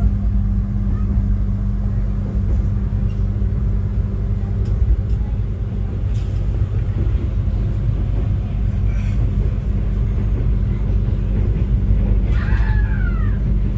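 Passenger train carriage in motion heard from inside: a steady low rumble of running gear with a constant low hum. A brief higher falling sound comes near the end.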